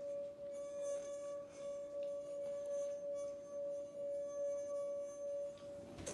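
Wine glass singing as a wet finger circles its rim: one steady, sustained ringing tone that wavers slightly in loudness.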